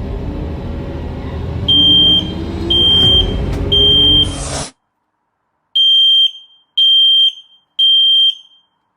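Smoke alarm sounding its high, piercing beep in the three-beep emergency pattern, twice: three half-second beeps, a short pause, three more. This is the standard signal for smoke or fire. The first three beeps sound over a loud, low rumbling background that cuts off abruptly. The last three sound alone, each with a short echo.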